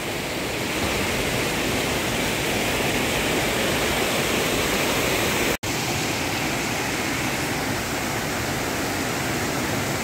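Steady rush of a waterfall's fast-running stream, an even roar of water, briefly cut to silence for an instant about halfway through.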